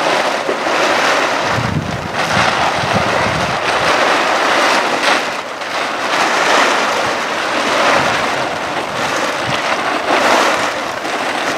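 Large plastic tarp rustling and flapping in gusts of wind as it is pulled across a camper's roof, swelling and easing every second or two, with wind buffeting the microphone.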